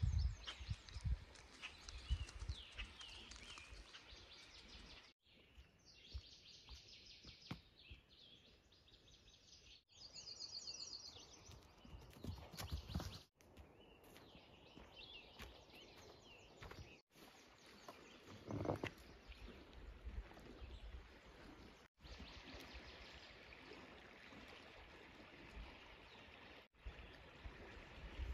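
Quiet outdoor ambience of lake and forest, with birds calling at times. It changes abruptly every few seconds as short clips cut from one to the next.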